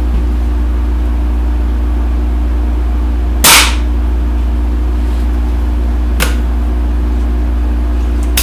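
A .177 pellet pistol fires once, a single sharp crack about three and a half seconds in, with a few drops of gun oil in its air port that the owner says ignite to add power. A much fainter click follows a few seconds later, over a steady low electrical hum.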